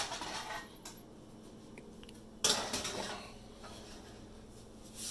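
Metal baking sheet put onto an electric oven's wire rack: a sharp metallic clank about two and a half seconds in that rings briefly, with a lighter knock at the start and a soft one near the end.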